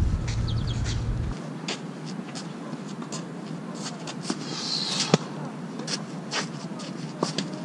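Tennis rally: the sharp knocks of racket strings striking the ball and the ball bouncing, the loudest about five seconds in, among the scuffing and sliding of tennis shoes on a clay court. Wind rumbles on the microphone for the first second or so.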